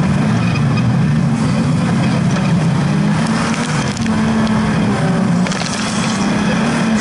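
Dirt-track racing buggy's engine running hard under load, pitch wavering as it accelerates and lifts. Flying mud and grit clatter against the car.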